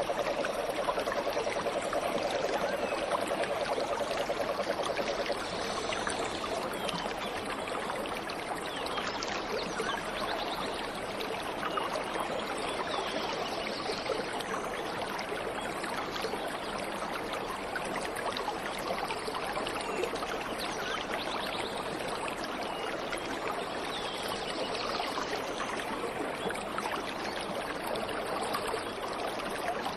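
Steady rush of flowing water from a waterfall and stream, slightly louder for the first five seconds or so, with faint bird calls now and then.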